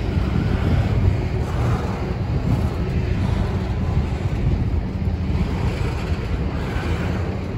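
Double-stack intermodal freight cars rolling past on steel wheels and rail: a steady low rumble.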